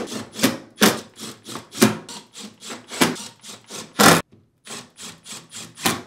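Short, sharp rasping strokes and knocks, irregular at about two a second, as screws are driven into a dishwasher's inner door panel with a cordless driver, with a brief break a little past four seconds in.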